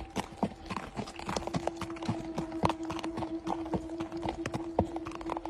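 A horse's hooves clip-clopping at a walk, an uneven patter of several knocks a second. A steady low hum runs under the hoofbeats and steps up slightly in pitch about a second in.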